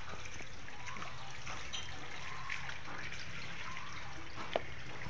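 Water trickling steadily down a sloping metal gutter into a wheelbarrow, with one sharp tap about four and a half seconds in.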